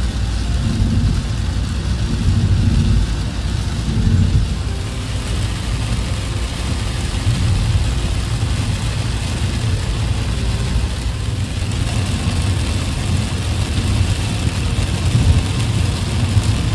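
Steady engine and tyre noise heard inside a car cruising on a highway, with the hiss of rain and a wet road.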